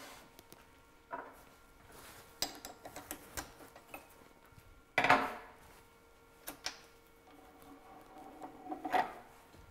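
Metal parts clinking and knocking as a collet chuck and its threaded holder are handled at a wood lathe: scattered light clicks, with the loudest knock about five seconds in and another near the end.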